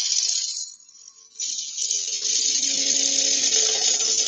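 Turning tool cutting into slightly wet wood spinning on a lathe, hollowing out the end of the piece: a hiss of shavings coming off, broken off briefly about a second in, then a longer cut with a steady low hum beneath it.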